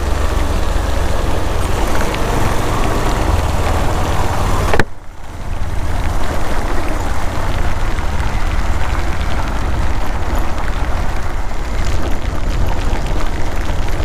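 Motorcycle riding on a wet road: the engine running under heavy wind buffeting on the microphone, with a broad rushing noise. The sound drops out suddenly for a moment about five seconds in, then resumes.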